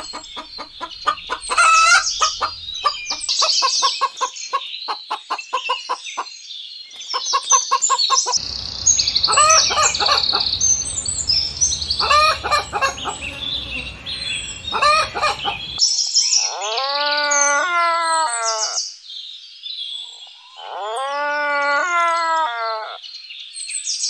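Domestic chickens clucking in quick pulsed calls, over steady high-pitched chirping from small birds. In the last third a rooster crows twice, each crow a long, wavering call of a few seconds.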